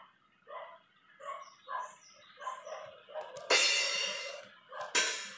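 A dog barking over and over in the background, about two barks a second. About three and a half seconds in, a sampled Roland TR-909 crash cymbal plays loudly and rings for about a second, followed by a second short noisy hit about a second and a half later.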